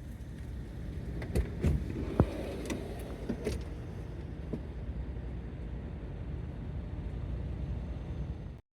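Steady low rumble of a vehicle, with a few sharp clicks and knocks in the first few seconds. It cuts off abruptly near the end.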